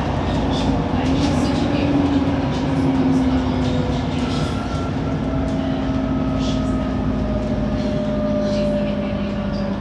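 Bus on the move, its engine running with a steady rumble under several held whining tones from the turbocharger and cooling fans that drift slowly in pitch.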